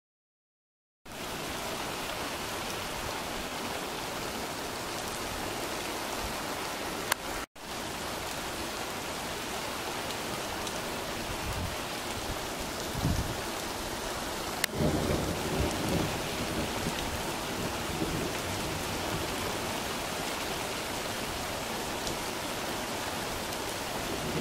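Heavy rain pouring steadily on a street and rooftops during a thunderstorm, with a sharp crack of thunder a little past halfway followed by a rumble.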